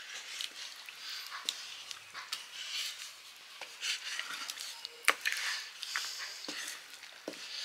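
Wooden paddle stirring and mashing loose, wet millet dhido in an iron pan: irregular wet scraping and squelching, with sharp knocks of the paddle against the pan, the loudest about five seconds in.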